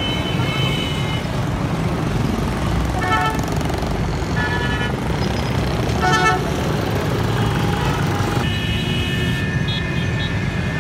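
Busy street traffic: engines of buses and motorcycles running steadily, with vehicle horns honking several times and one longer horn blast near the end.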